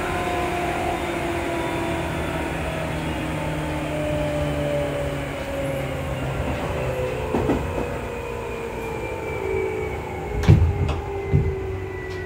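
Seibu 2000 series field-chopper-controlled electric train heard from inside the passenger car, running with a motor and gear whine that falls steadily in pitch as it slows. About ten seconds in come two heavy knocks about a second apart.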